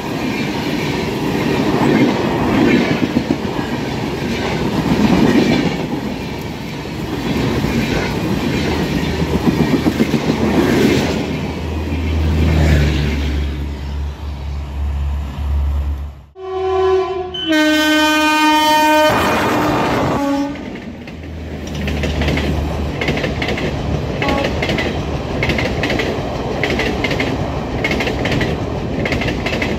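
Indian Railways express trains passing at high speed, the coaches rumbling and their wheels clattering over the rail joints. About halfway through, after a sudden cut, a train horn sounds loudly for about four seconds in two parts. Then the clatter of a Garib Rath's coaches speeding past picks up again.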